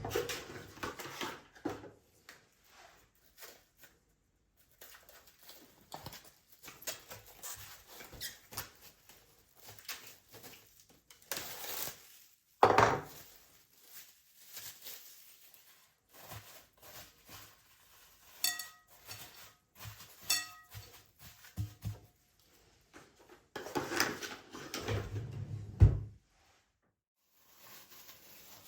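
Kitchen handling sounds: dishes and utensils clinking, knocking and scraping in short bursts. There is one sharp, loud knock about halfway through, and two brief ringing clinks a little later.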